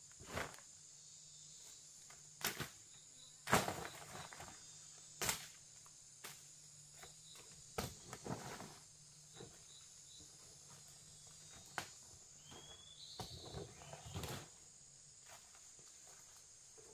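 Steady high-pitched drone of insects, with scattered sharp snaps and clicks and short spells of rustling. There is one brief chirp about two-thirds of the way through.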